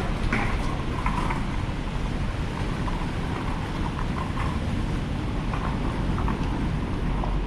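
Steady wash of heavy rain and wet-street traffic noise, with a low rumble and a few faint scattered ticks.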